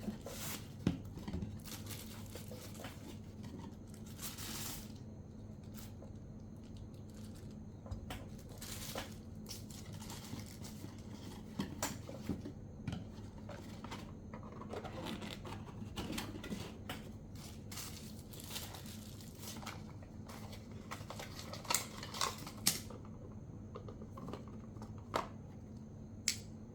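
Microphone packaging being handled and opened by hand: scattered crinkling and tearing rustles with small clicks and taps, over a steady low hum.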